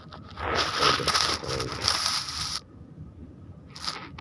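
Close crackling and scraping handling noise for about two seconds, then two short rustles near the end.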